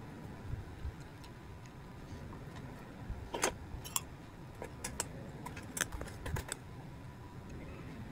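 Light, scattered clinks and ticks of ice cubes in a glass tumbler as milk is poured over them, the sharpest clink about three and a half seconds in and a cluster of them a little later.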